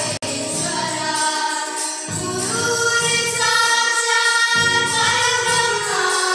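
A small group of children singing a song together, with long held notes, to a Yamaha electronic keyboard accompaniment. There is a split-second dropout in the sound shortly after the start.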